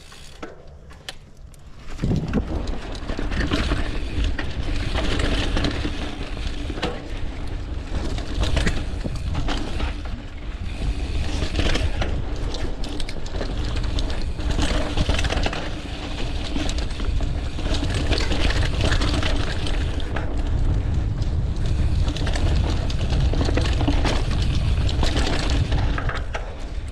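Polygon Siskiu T7 mountain bike ridden fast down a dirt trail: a loud rush of wind and tyre noise with rattles and knocks from the bike over rough ground. It starts suddenly about two seconds in as the rider sets off from a standing start, after a few clicks.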